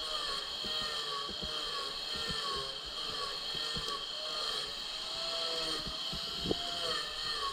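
Handheld electric angle grinder running with a steady high whine while its disc carves into a dry wooden log. The pitch dips and recovers again and again as the disc bites into the wood. There is one sharp knock about six and a half seconds in.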